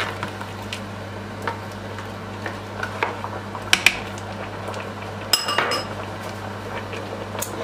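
Plastic spoon stirring soup in a cooking pot, knocking and clinking against the pot at irregular moments. There is one clearer, ringing clink about five seconds in.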